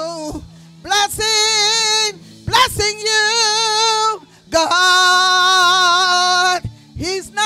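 A woman singing a gospel song into a handheld microphone. She sings long, drawn-out vowel phrases with vibrato, four of them with short breaks between, over steady low notes held underneath.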